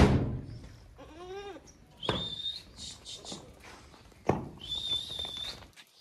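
Jamunapari goat kid bleating once with a quavering call about a second in, after a loud thump at the start. Two sharp knocks follow, each with a thin high squeak.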